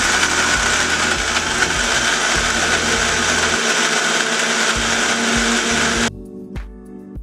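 Electric mixer grinder with a stainless steel jar running at full speed, dry-grinding roasted wheat, mung dal, nuts and maize into a fine powder. It cuts off suddenly about six seconds in.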